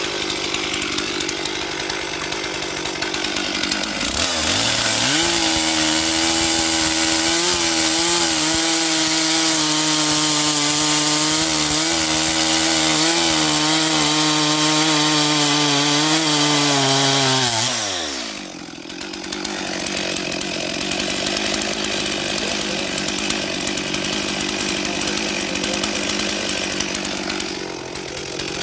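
Two-stroke chainsaw running at a low idle, then revved up about four seconds in and held at full throttle for about thirteen seconds as it rips lengthwise along the grain of a firewood log. The engine note wavers under the load of the cut, then falls back to idle about eighteen seconds in.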